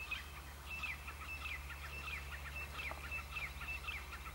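Birds calling: a run of short, high, downward-slurred notes, about three a second, over a low steady hum.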